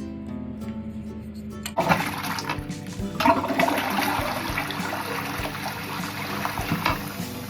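Quiet guitar music, then about two seconds in a toilet flushes: water rushes from the Roca dual-button cistern into the bowl and keeps running.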